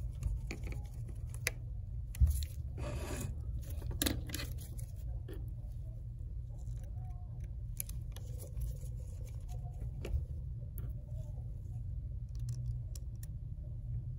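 Small clicks and scrapes of a precision screwdriver driving tiny Phillips screws into an iPhone's internal bracket, with gloved hands handling the phone and one sharper knock about two seconds in, over a steady low hum.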